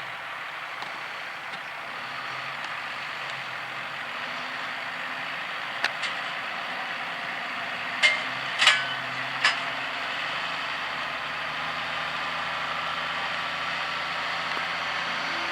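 New Holland TM120 tractor engine running steadily while ploughing, with a few short sharp knocks near the middle.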